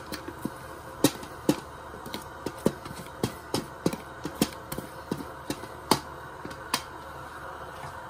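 Wooden spatula knocking and scraping against a perforated steel colander and a steel pan while boiled rice is pushed off into the pan: a string of sharp, irregular taps, about two a second, over a steady hum.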